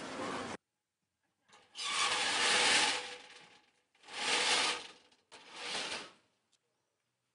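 Three long scraping strokes, wood rubbing on wood, with a sharp click between the second and third, as a shop's wooden door shutters are worked open by hand.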